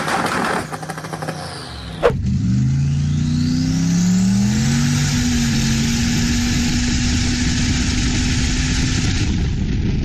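Turbocharged LSX V8 in a 1952 Willys Jeep running unevenly, then a sharp click about two seconds in. Heard from inside the cabin, the engine then accelerates: its pitch climbs, drops at a gear change, climbs again and settles into a steady cruise. A high turbo whistle rises during the first pull, and a steady rushing hiss runs under the cruise.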